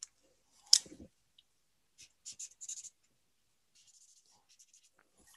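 Pen writing on paper: a sharp tap about a second in, then a quick run of short scratchy strokes, and fainter strokes near the end.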